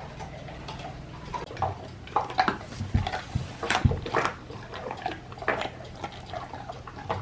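Dogs chewing dehydrated chicken-feet treats, a run of irregular crunches and cracks as the dry bones break.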